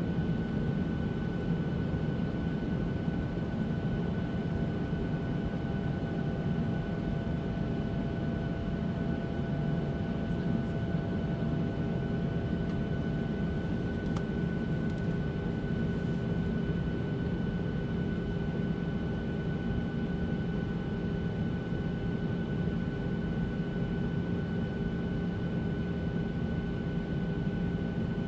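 Airliner cabin in cruise flight: a steady low rush of engine and air noise with a few faint steady hums and whines over it.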